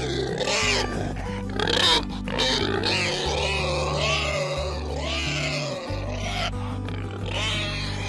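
Domestic pigs calling, with wavering squeals that rise and fall in pitch, over background music with a low held bass line.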